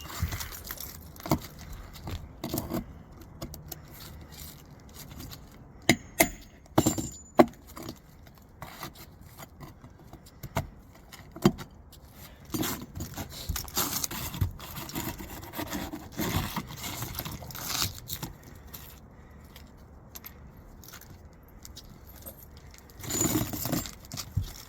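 Metal roof snake scraping and sliding under roof shingles, with sharp metallic clicks and taps as it catches on roofing nails and works them loose. A few loud clicks come close together about six to seven and a half seconds in.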